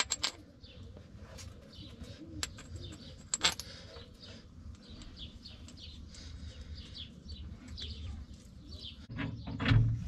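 Small birds chirping repeatedly around the farmyard, with a few sharp metallic clicks from a removed bolt being handled. A louder rustle of handling builds near the end.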